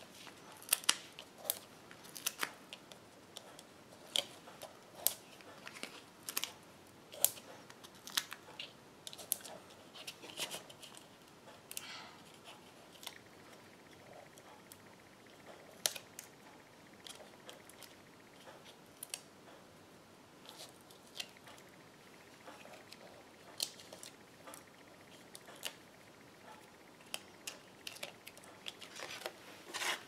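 Foam adhesive dimensionals being peeled off their backing sheet and pressed onto the back of a cardstock panel: an irregular scatter of small sharp clicks and ticks.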